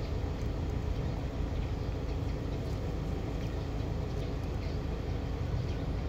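Steady low background rumble with faint, scattered light ticks.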